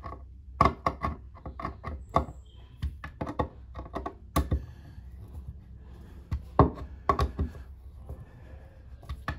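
A long hand screwdriver tightening the clamping screws of a shower tray's waste trap, making a run of irregular sharp clicks and light knocks as it is turned and regripped. The fitting is being drawn up tight onto the tray.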